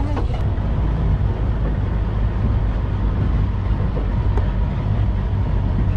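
Open-topped safari jeep driving over a sandy dirt track: a steady low rumble of engine and road noise from inside the vehicle.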